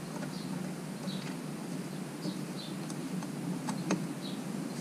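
Faint, scattered light clicks and ticks as the small bolts of a Suzuki DR650SE's oil filter cap are threaded in by hand, one or two threads each, to hold the cap in place.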